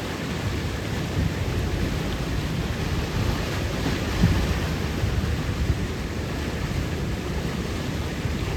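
Steady rushing noise with a rumbling low end and no distinct events.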